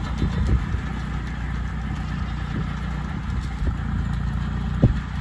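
A tractor engine running steadily while a Massey Ferguson sickle bar mower cuts grass, its reciprocating knife clattering. A few sharper knocks come through, the loudest shortly before the end.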